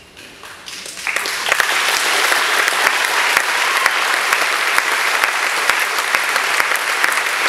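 Audience applauding: many people clapping, starting about a second in and then holding steady.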